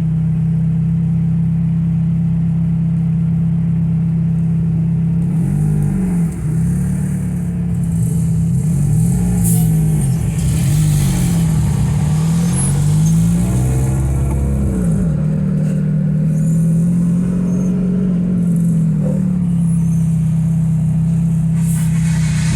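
Cars driving in convoy: a steady low engine drone, with other cars' engine notes repeatedly rising and falling in pitch through the middle stretch.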